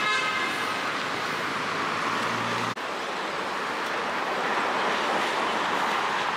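City road traffic: cars driving past with a steady hiss of tyres and engines. A car horn ends in the first second, and the noise drops out for an instant about three seconds in, then carries on.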